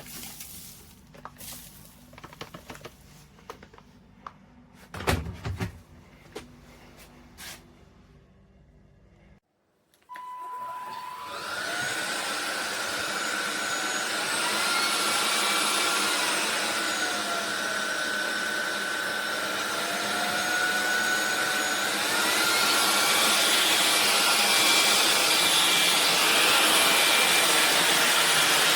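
Handling clicks and knocks, then a SunSare X7A cordless stick vacuum switched on about ten seconds in. Its motor spins up to a steady whine with rushing air. The pitch dips and comes back, then steps higher and a little louder about three-quarters of the way through.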